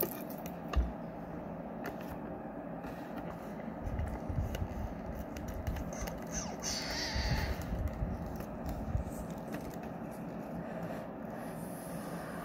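A plastic Godzilla toy figure and its rock base being handled and moved about on a table, over a steady hum. There is a thump about a second in, then soft knocks and a brief scraping in the middle.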